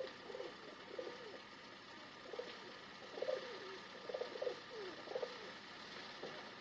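Pigeons cooing: a series of short, wavering coos over a steady background hiss, bunched together about halfway through.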